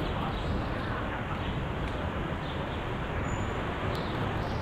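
Steady city-street traffic noise: the rumble of cars driving past on a busy street, with a brief click about four seconds in.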